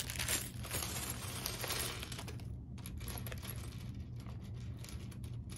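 Plastic LEGO parts bag crinkling as it is opened, then small LEGO pieces clicking and clattering as they are tipped out and picked through, as a run of separate light clicks over the last half.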